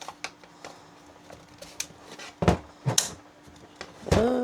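Light plastic clicks and two louder knocks as a filament spool is handled in a 3D printer's filament feeder, over a steady faint hum. Near the end a loud, steady pitched tone starts up. The spool is misbehaving in the feeder.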